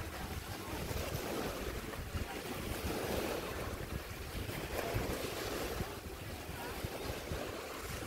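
Wind buffeting the microphone over a steady rush of lake surf.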